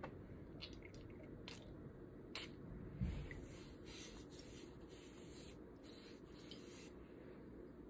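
A few faint clicks from handling a small item, then several airy sniffs between about four and seven seconds in, the last the longest, as a person smells a beauty product held to the nose.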